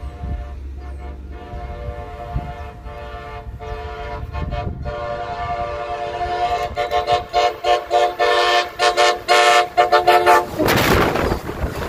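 Horn of an approaching Amtrak Pacific Surfliner train, a multi-note chord sounded in long blasts that grow louder as the train nears. Near the end the horn stops and the rushing noise of the train arriving alongside takes over.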